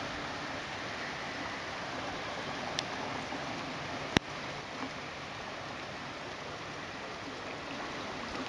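Steady rushing of a flooded creek running high and fast, with a single sharp click about four seconds in.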